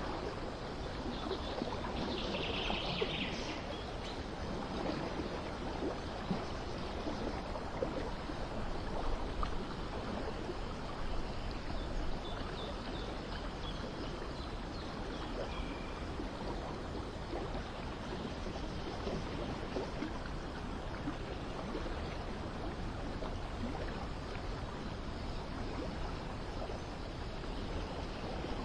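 Steady running-water ambience with a few bird chirps, the clearest about two to three seconds in and a few more faintly around the middle.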